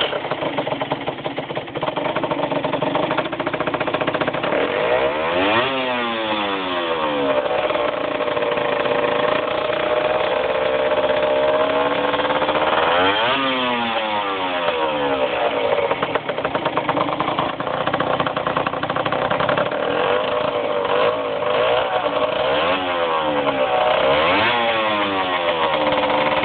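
Small motorbike engine running through a Hebo Performance aftermarket exhaust, revved up and let back down several times, with stretches held at steady revs between the revs.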